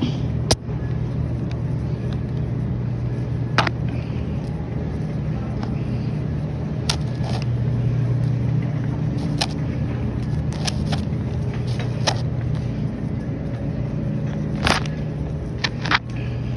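Wire shopping cart rolling across a store floor: a steady low rumble from the wheels, with the basket clicking and rattling every few seconds.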